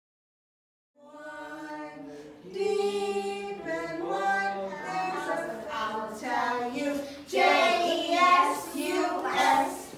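A group of children singing a song together, starting about a second in after a moment of dead silence and growing louder a second or so later.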